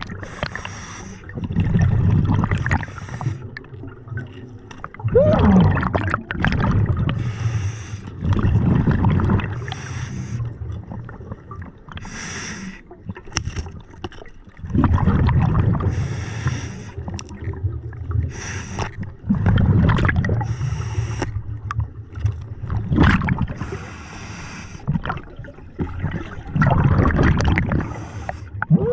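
Scuba diver breathing through a regulator underwater. Each breath in is a short hiss through the regulator, and each breath out is a long rumble of exhaust bubbles. The cycle repeats every few seconds.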